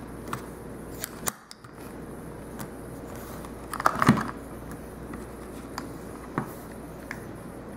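Small plastic clicks and taps as a Flygrip kickstand grip is pressed onto the skinned back of a phone and the phone is handled on a tabletop, with the loudest cluster about four seconds in.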